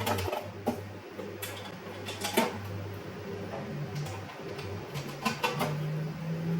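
Scattered metal knocks and clinks of hand tools on bolts while the lathe is being bolted down to the workbench, over a steady low hum.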